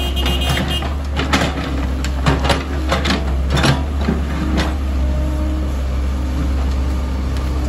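Hydraulic excavator's diesel engine running steadily, with sharp knocks and scrapes from its steel bucket digging into rocky soil over the first few seconds, thinning out later.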